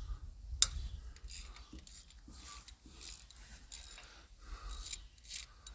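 Faint metal clicks and scraping of hand tools working bolts on a Chevy 262 V8, with one sharp metal click about half a second in.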